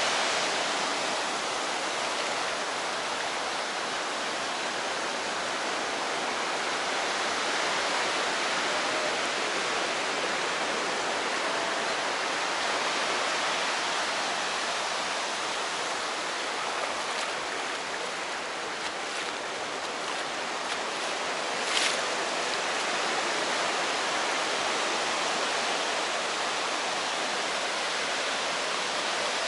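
Small waves breaking and washing up a sandy beach: a steady rushing surf. A single short click sounds about three-quarters of the way through.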